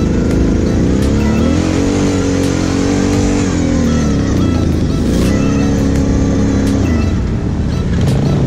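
Kawasaki KFX 700's V-twin engine running, revved twice: each time its pitch rises, holds for a second or two, and falls back.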